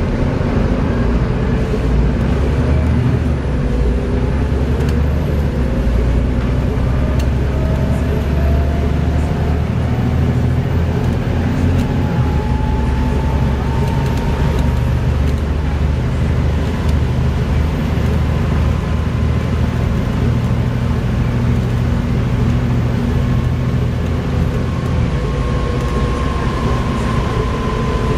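Volvo B7TL double-decker bus's six-cylinder diesel engine running steadily under way, with a whine that rises in pitch over several seconds as the bus gathers speed, twice.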